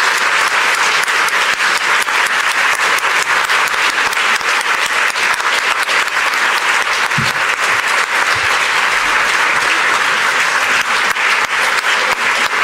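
Audience applauding: dense, even clapping from many hands, holding steady throughout.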